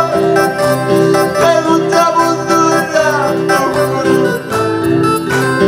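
A man singing a Quechua praise song through a microphone, over an electronic keyboard playing a steady, bouncy rhythm with a plucked, guitar-like sound.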